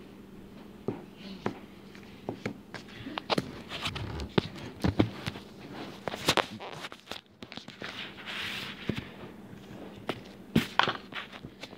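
Purple slime being squished and poked by hand in a small plastic tub, giving irregular sharp clicking pops.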